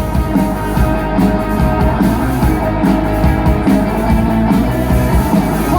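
Rock band playing an instrumental passage without vocals: guitar over bass and drums.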